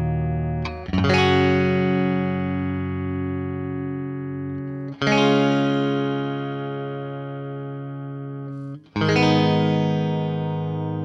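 Telecaster-style electric guitar with Lindy Fralin Blues Special pickups, selector in the middle position, played through a Marshall amp. Three chords are struck about four seconds apart, and each is left to ring and slowly fade.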